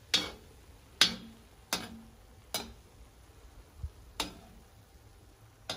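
A utensil knocking against the kazan (cooking cauldron), six sharp clinks with a short ring about a second apart, as the cooked buckwheat is scraped together into a mound.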